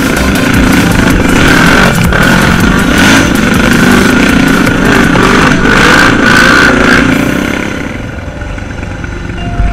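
ATV engine running loudly during an off-road ride, dropping away about eight seconds in.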